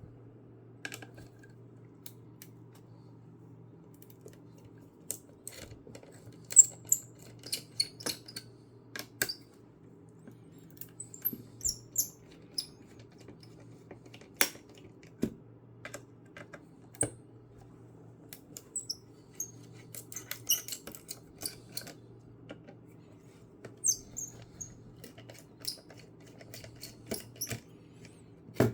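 Irregular small clicks, taps and scrapes of hands and tools on a laptop motherboard and its metal heatsink as the cooler is worked off to reach the processor, over a steady low electrical hum.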